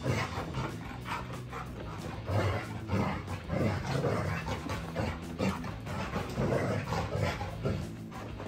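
Young golden retriever making excited noises at play, a string of short sounds about two a second.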